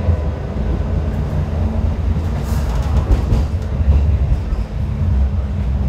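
Kawasaki-built Hong Kong Light Rail car running along the track, heard from inside the trailer car: a steady low rumble, with a short run of wheel clicks and rattles about two and a half to three and a half seconds in.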